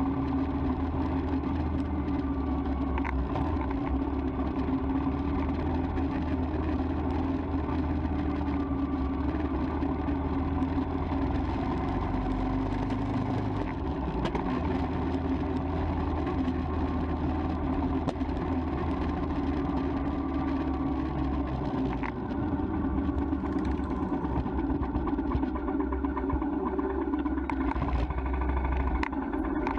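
Royal Enfield Himalayan's single-cylinder engine running steadily at low speed, with a few sharp clicks near the end.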